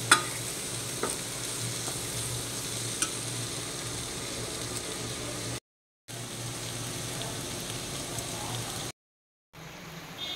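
Bitter gourd masala sizzling in oil in a stainless steel kadai while a spoon stirs it, with a sharp clink of the spoon on the pan just after the start. The sound cuts out twice briefly. After the second break it is a quieter, steady sound of the curry boiling.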